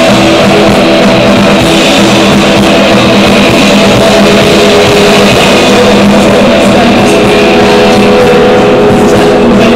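Live alt-country band playing loud, with electric guitar to the fore.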